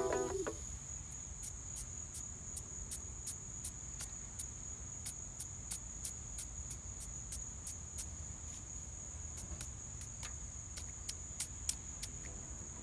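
Insects chirping: a steady high-pitched trill with short sharp chirps over it, about three a second, over a low steady rumble.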